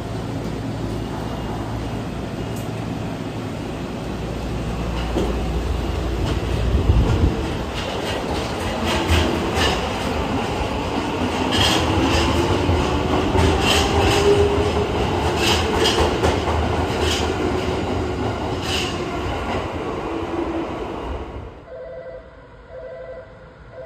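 Tokyo Metro Marunouchi Line 2000-series subway train pulling out of an underground station. The rumble builds, then the motor whine rises in pitch as the train gathers speed, and the wheels clack in pairs over the rail joints as the cars pass. The sound cuts off near the end.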